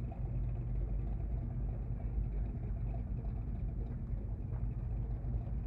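A car engine idling, a steady low rumble that does not rise or fall.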